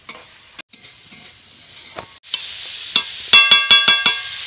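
Metal spatula stirring and scraping a chicken, potato and cabbage filling in a metal kadai, the oil sizzling steadily, stronger from about two seconds in. Near the end the spatula knocks the pan about six times in quick succession, and the kadai rings with each knock.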